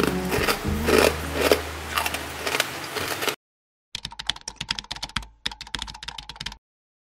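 Background music with sharp crackles from crispy scorched-rice crackers being broken by hand. The music cuts off a little over three seconds in, and then a rapid keyboard-typing sound effect clatters for a few seconds before stopping.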